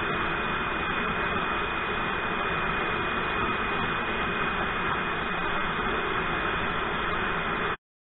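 Steady hiss with a thin, steady high whistle over it, cutting off suddenly near the end: nitrogen flowing from the cylinder through the gauge hoses into a refrigeration system to pressurize it for a leak test.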